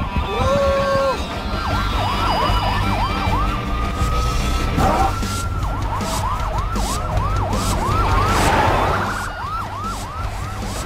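Police car sirens in yelp mode, with fast repeated sweeps of about three a second and a stretch of steady held tone between runs of sweeps. A low rumble of engines runs underneath.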